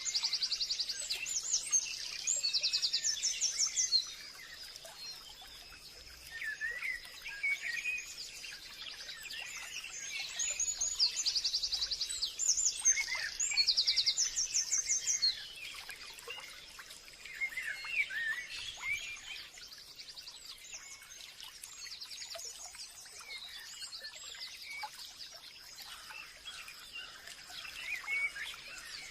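Forest birds singing: fast, high trills come in bursts at the start and again about ten to fifteen seconds in, with scattered lower chirps from other birds throughout. A thin, steady high tone sits underneath.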